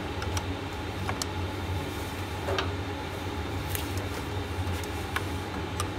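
Spanner working loose a battery terminal bolt: scattered light metallic clicks and taps at irregular intervals, over a steady low hum.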